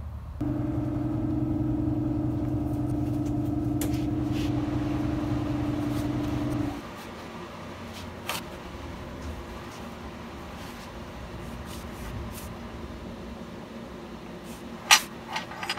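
A steady machine hum starts about half a second in and cuts off suddenly after about six seconds, leaving a low steady shop background. Near the end, one sharp clack and a couple of lighter clicks as a TIG torch and its cup are handled on a steel welding table.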